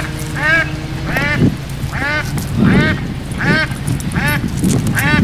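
A duck quacking over and over, about one quack every two-thirds of a second.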